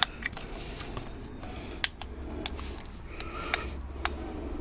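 Scattered light clicks and knocks from small objects being handled, with faint rustling, over a steady low hum.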